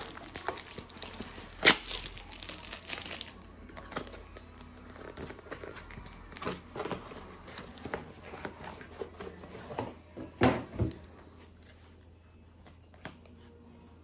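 Cardboard and plastic packaging of a small boxed gadget crinkling and rustling as it is unwrapped and opened, with a sharp click about two seconds in and two louder knocks about ten seconds in; the handling dies down near the end.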